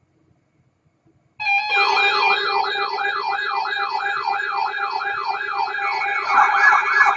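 Electronic emergency-alert tone starting suddenly about a second and a half in: a rapid siren-like wail, about three rises and falls a second, over steady held tones, growing fuller near the end.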